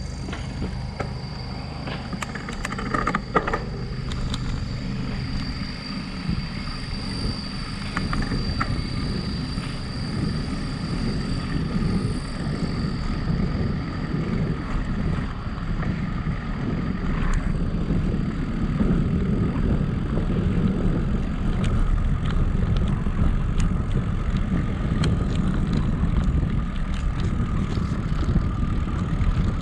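Wind buffeting the microphone, with the rumble of a bicycle's tyres on asphalt, getting a little louder in the second half. A thin steady high whine sits over it for the first dozen seconds.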